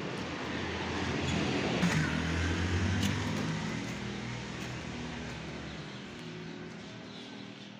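Engine of a passing motor vehicle, a low hum that grows louder over the first two or three seconds and then fades away.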